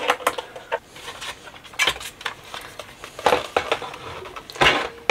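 Irregular metallic clicks and knocks from a screwdriver working the screws of a sheet-metal equipment case, then the case being opened and a metal-cased power-supply module handled and lifted out. The strongest knocks come about two, three and four and a half seconds in.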